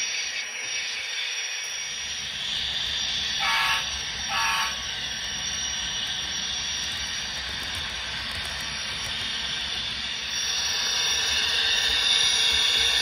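Onboard sound-decoder audio of an HO scale Union Pacific GTEL 8500 hp 'Big Blow' gas turbine locomotive model: a steady turbine whine and hiss, broken by two short horn blasts about three and a half and four and a half seconds in. The turbine sound gets louder about ten seconds in as the locomotive runs past close by.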